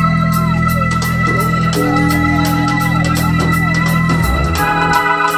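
Live go-go band playing: a keyboard holds sustained organ chords over a steady tick of cymbals, about four a second, and the chord changes near the end.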